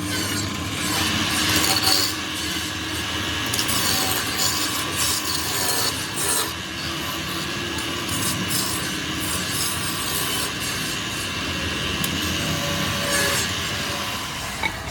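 Steady abrasive rubbing and scraping, like grinding or filing, continuous with many small irregular scratches.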